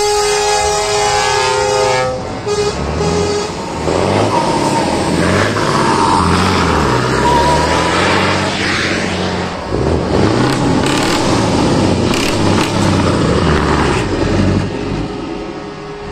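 A truck's multi-tone air horn sounds a steady chord for about the first two seconds. Then the loud exhaust of heavy trucks' diesel engines with open pipes takes over, revving and pulling away, its pitch rising and falling again and again.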